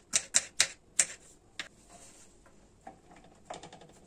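Kitchen knife chopping red bell pepper on a bamboo cutting board: about five sharp knocks of the blade on the wood in the first second and a half or so. Softer, quick clicks near the end as the diced pieces are pushed together by hand.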